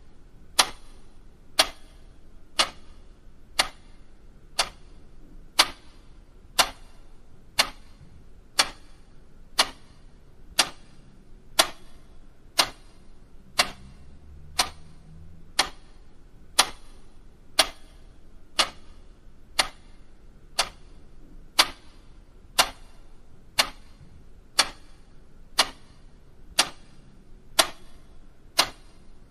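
Steady ticking of a timepiece, one sharp tick every second.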